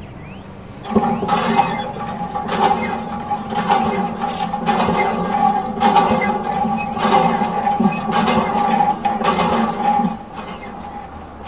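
Small electric mini water pump motor running with a steady whine, feeding the miniature hand pump's spout. It is punctuated by a click about once a second as the pump handle is worked. The motor starts about a second in and stops about ten seconds in.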